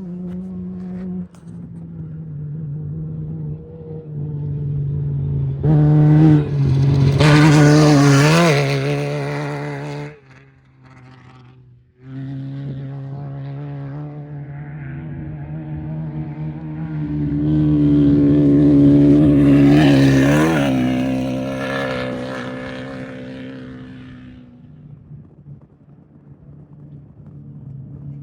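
Off-road race vehicles' engines passing close by twice, the pitch rising and falling with the throttle. The first pass is loudest about seven to nine seconds in. After a sudden near-gap around ten seconds, the second builds to a peak around twenty seconds and fades away.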